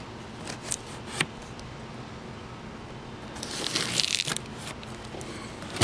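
Packing tape on a cardboard box being slit and torn with a small blade: a few light clicks, then a scratchy tearing rip about three and a half seconds in, and a sharp click at the very end.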